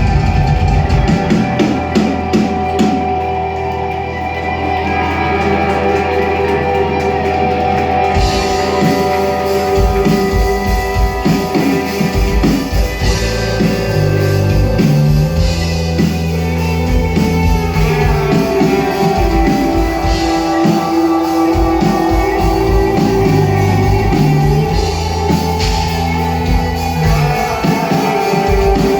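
Rock band playing live, with electric guitar, bass and drum kit. The drums and cymbals come in fuller about eight seconds in.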